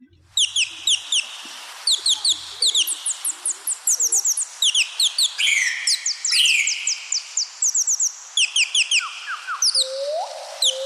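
Birds chirping: many quick, high, falling chirps in rapid runs over a steady hiss, with two rising whistles near the end.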